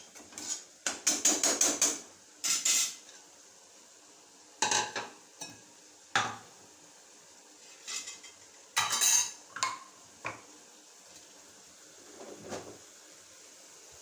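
Metal cooking utensils clattering and clinking against pots and pans: a quick run of knocks about a second in, then scattered single clanks and short clusters.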